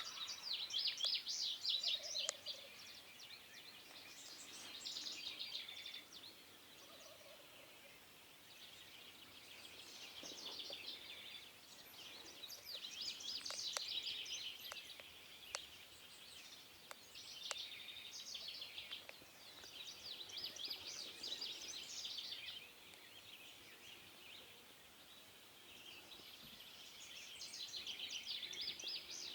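Songbirds singing repeated high, fast-trilled phrases, each about two seconds long and coming every few seconds, with a couple of faint lower calls underneath about two and seven seconds in.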